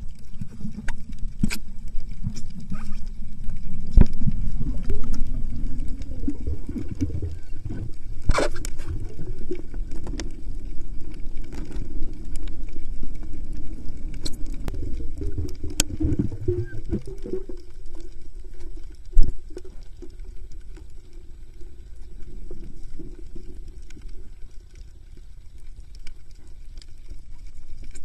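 Underwater sound picked up by a camera in its housing: an uneven low rumble of moving water, with scattered sharp clicks and knocks. It grows quieter in the last third.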